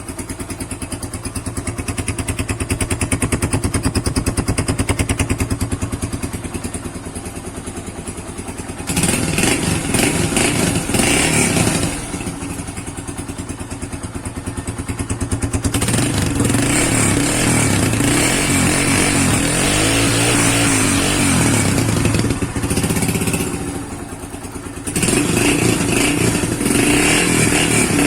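Yamaha Factor 125's single-cylinder four-stroke engine running through a Roncar estralador aftermarket exhaust, loud, settling back between blips of the throttle that rise sharply about 9, 16 and 25 seconds in.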